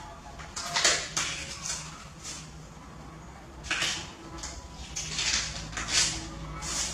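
Kitchen knife scraping and cutting through a pale vegetable in short, irregularly spaced rasping strokes, with a steady low hum underneath.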